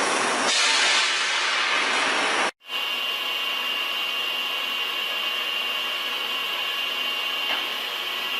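Steady machining noise from heavy metalworking equipment such as a large lathe, with no speech. About two and a half seconds in it cuts out for an instant and changes to a different steady machine noise carrying a thin high whine.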